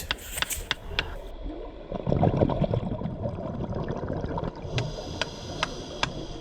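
Underwater sound of a scuba diver breathing out through the regulator: exhaled bubbles gurgling, loudest about two seconds in, with a run of sharp clicks about two to three a second near the end.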